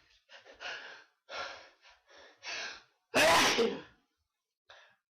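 A person sneezing: a run of short, gasping inhales builds up, then one loud sneeze bursts out about three seconds in, followed by a couple of soft breaths.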